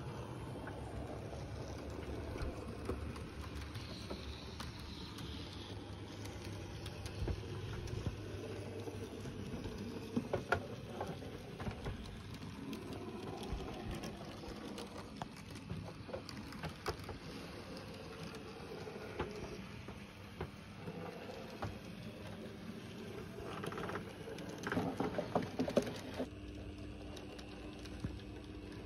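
Heljan 009 narrow-gauge model locomotive Lyn running with three model coaches: a steady small motor and gear hum, with the wheels clicking over the track, and a quick run of louder clicks near the end.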